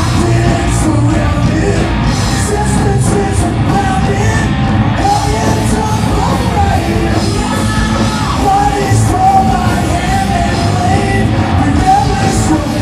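Loud live hard rock band playing: distorted electric guitars, bass and drums, with a wavering high melody line over them, recorded from the floor of a small venue.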